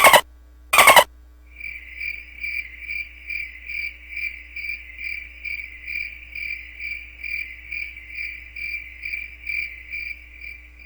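A short loud burst of noise about a second in, then a single cricket chirping steadily: short, even, high chirps at about three a second, the stock 'crickets' effect used for an awkward silence.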